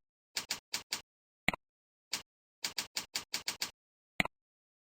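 Computer keyboard keystrokes and mouse clicks: a mouse click, a run of four quick keystrokes, another click, a single keystroke, a run of about seven keystrokes, then a final click, with dead silence between them. This is a username and password being typed into a login form and the login button being pressed.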